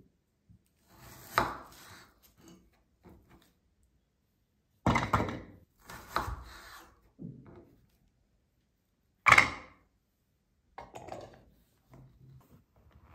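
Kitchen work sounds: about half a dozen separate knocks and scrapes of utensils on wood and dishes, with short quiet gaps between them; the sharpest knock comes about nine seconds in.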